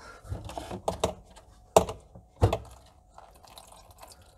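Clicks, rustling and knocks of a corrugated plastic dishwasher drain hose being worked off a plastic sink waste-pipe spigot, with two sharp knocks near the middle.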